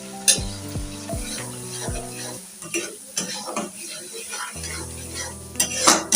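A spoon stirring and scraping a spice paste of onion, ginger-garlic and chili powder as it sizzles in hot oil in a pan. Scattered clicks of the spoon against the pan, the sharpest about a third of a second in and again near the end.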